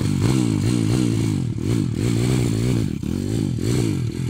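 Stomp Racing 140cc YX pitbike's single-cylinder four-stroke engine revving hard, the revs rising and falling over and over as the rear wheel spins in loose dirt on a steep bank.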